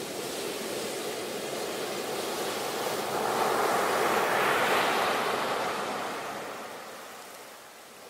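Ocean surf breaking on a beach: a steady wash of breaking waves that swells to its loudest around the middle, then fades away as the wave runs out and recedes.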